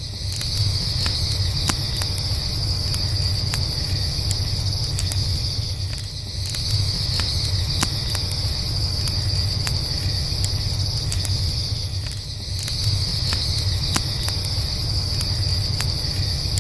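Campfire crackling with scattered sharp pops over a low, steady rumble, under a continuous high-pitched chorus of crickets that dips briefly about every six seconds.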